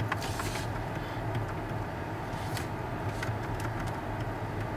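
Steady low hum in a car cabin with a few faint, scattered clicks from the steering-wheel radio buttons as the presets are scrolled through.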